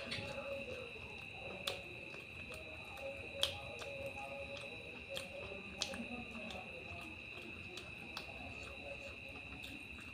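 A person eating rice and fish by hand: fingers mixing the food on the plate, then chewing with a few sharp mouth clicks. A steady high-pitched whine sits underneath.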